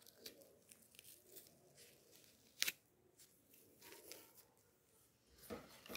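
Faint rustling and a few small clicks as medical tape and gauze strips are peeled off an arm, with a sharper click about two and a half seconds in.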